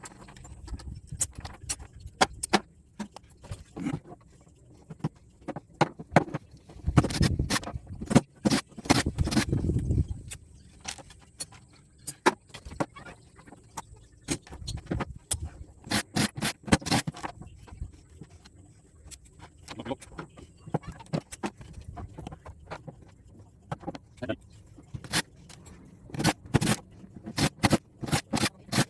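Small scrap connectors and screws clinking and clattering as they are handled by hand, in irregular bursts of sharp clicks with some scraping.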